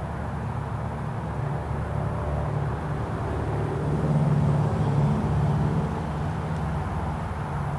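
Cessna 172's piston engine and propeller droning overhead as the plane climbs out after takeoff, swelling to its loudest about four to five seconds in and then easing off a little.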